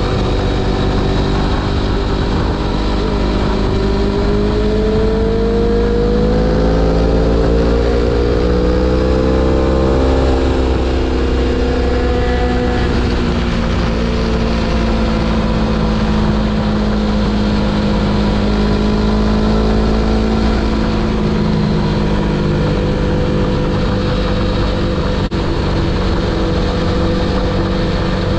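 Aprilia Tuono V4 1100 Factory's V4 engine running under way, with a steady rush of wind underneath. The revs climb for several seconds, then slowly ease off and hold level.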